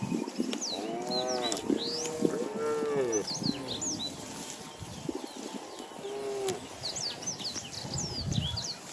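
Cattle mooing: a run of moos from about one to three seconds in, and a single shorter moo about six seconds in. Many short, high bird chirps sound throughout.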